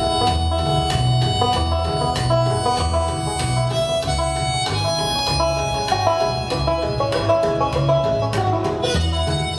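Live band playing an instrumental intro: banjo picking over upright bass notes on a steady beat, about two bass notes a second.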